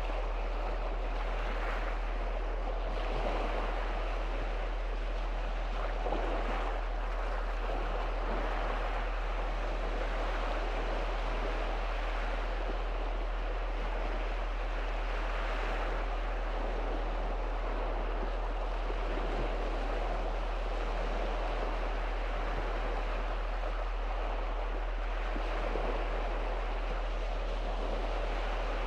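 Small sea waves breaking and washing on the shore: a steady surf hiss that swells and eases every few seconds, over a steady low hum.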